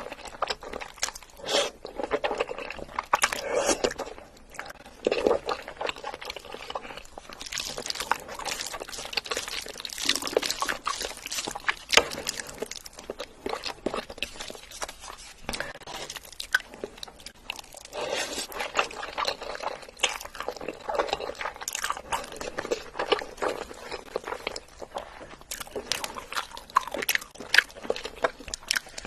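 Close-miked eating sounds: wet chewing with crunchy bites, a dense run of irregular small clicks and smacks.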